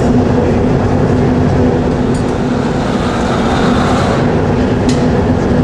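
Steady roar of glassworks furnace burners and blowers with a constant hum. The hiss of a gas torch flame at the glass rises for about a second near the middle, and there are a few light metallic clinks of tools.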